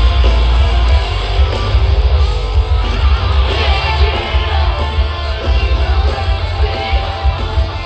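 A rock band playing live: electric guitars over heavy, pounding bass and drums, loud and dense.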